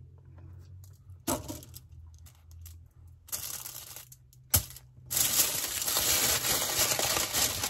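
Aluminium foil crinkling steadily as it is folded around a sandwich, starting about five seconds in, after a light knock, a short rustle and a sharp click.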